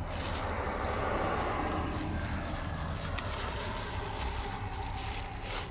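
Vehicle noise: a steady low rumble with a broad tyre-like hiss that swells about a second in and slowly eases, like a car passing close by.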